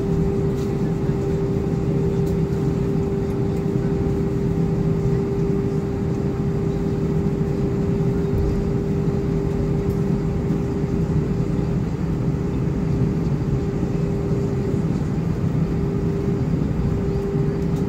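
Airliner cabin noise while taxiing: the jet engines run at a steady idle, giving a constant hum over a low rumble.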